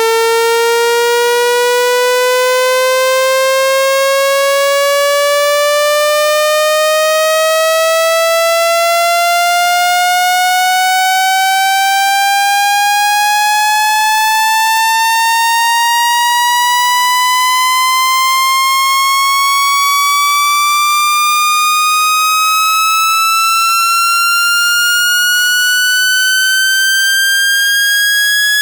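Synthetic speaker-cleaning tone: a loud, buzzy electronic tone rising slowly and evenly in pitch, about two octaves, meant to be played at full volume to shake water out of a phone's loudspeaker.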